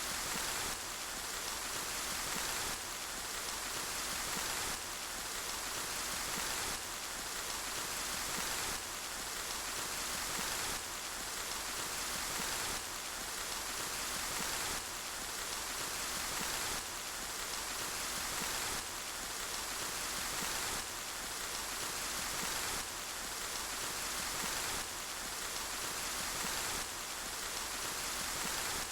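Steady rain falling, an even hiss strongest in the upper range, with a slight dip in level about every two seconds.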